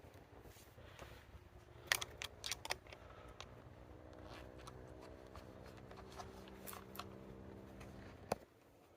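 Faint clicks and rustles of handling, with a cluster of sharp clicks about two seconds in. Under them runs a low steady hum with several even tones, which cuts off suddenly with a loud click near the end.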